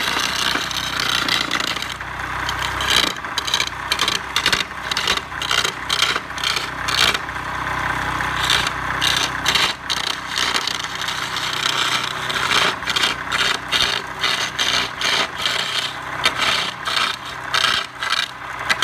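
Tool scraping against wood in quick repeated strokes, over a faint steady hum of a motor.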